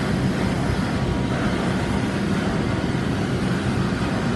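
Steady, loud machinery drone with a low hum, unchanging throughout, typical of running engines or generators in an engine room.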